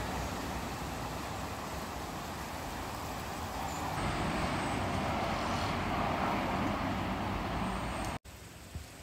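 Steady road traffic noise, swelling louder about four seconds in, then cutting off abruptly near the end.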